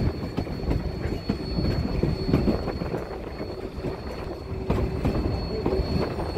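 Passenger train cars rolling on a curve, heard from on board: a steady rumble of the wheels on the rails with scattered clicks, and a thin, steady wheel squeal from the curve.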